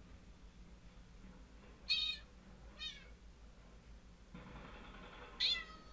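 Recorded cat meows played by a cat prank app on a phone. There are three short meows: one about two seconds in, a fainter one a second later, and a third near the end.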